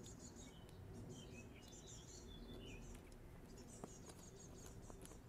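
Faint birdsong: repeated high chirps with a few short whistled glides. A few small clicks about four to five seconds in come from a cable combination lock being opened.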